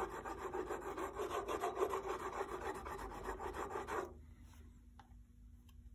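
Steel chisel edge rubbed on a diamond sharpening stone in quick back-and-forth strokes, stopping about four seconds in. This is honing a 30-degree bevel, straightening the edge left by grinding.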